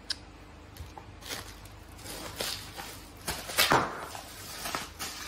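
Handling noise as a LiPo battery pack is taken out of its cardboard box and set down on carpet. A sharp click comes near the start, then a series of short scraping and rustling strokes of cardboard and packaging, loudest a little past halfway.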